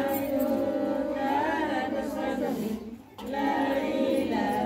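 A group of women singing a traditional wedding song together, unaccompanied, in long held phrases, with a short breath pause about three seconds in.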